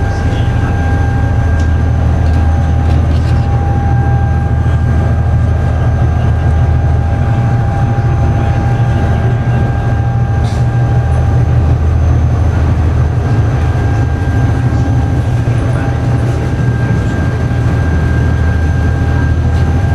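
Ferry's engines running at cruising speed, heard from on board: a loud, steady deep drone with a constant whining hum above it.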